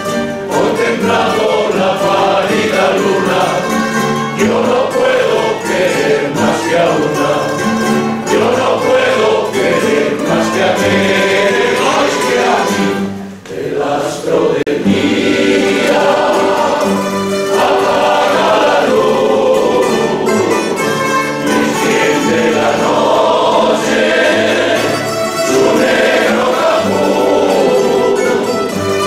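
A rondalla choir singing together over plucked guitars, lutes and an accordion. About halfway through there is a brief pause between phrases, and then the song carries on.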